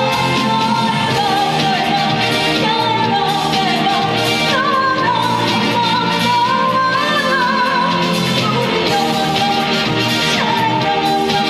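A woman singing a trot song live over a loud backing band track. Her voice slides between notes with vibrato.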